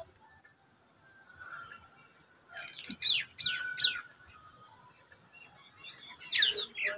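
Birds calling: a quick run of high chirps, each falling in pitch, about three seconds in, and another loud falling call near the end.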